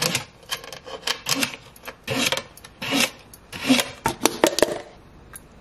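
Kitchen knife cutting peeled carrots on a plate: an irregular run of quick cuts that stops about five seconds in.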